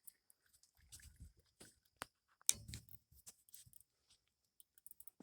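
Faint scattered clicks, knocks and rustles of something being handled, with one louder knock about two and a half seconds in.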